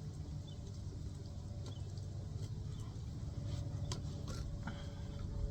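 A few light clicks and handling noises as a Fix-a-Flat hose nozzle is threaded onto a mower tire's valve stem, over a steady low rumble.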